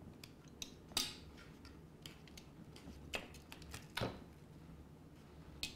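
Raw chicken cutlets being turned over on a metal sheet pan: a few faint, scattered clicks of a fork against the pan and soft slaps of the meat being laid down. The clearest come about a second in and about four seconds in.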